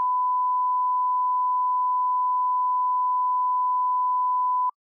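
Broadcast line-up reference tone that plays with colour bars: a single steady, unbroken pure tone that cuts off suddenly with a faint click near the end.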